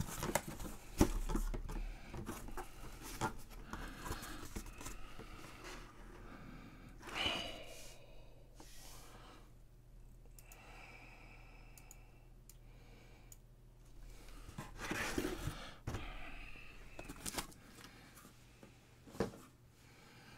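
Cardboard box being opened by hand, its flaps scraping and rustling, with a few knocks as a mini football helmet in a plastic display case is handled and set down.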